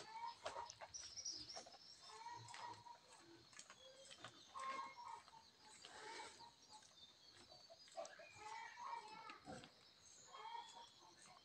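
Chickens clucking faintly in short, scattered calls.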